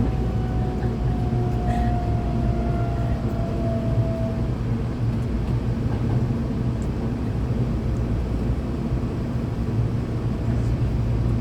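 Hankyu electric train running, heard from inside the car: a steady low rumble of wheels and motors. A faint whine, the Toshiba GTO-VVVF inverter, slides slowly down in pitch and fades out about four seconds in.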